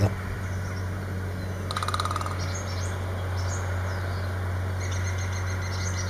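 Male great spotted woodpecker drumming: one rapid roll of strikes, about half a second long, around two seconds in. It is his call to the female, made loud by striking a small branch. Faint bird chirps follow over a steady low hum.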